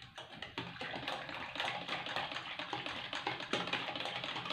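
Hand whisk beating cocoa powder into milk in a stainless steel saucepan: a rapid, continuous run of light ticks as the tines strike the pot, working the cocoa until it dissolves.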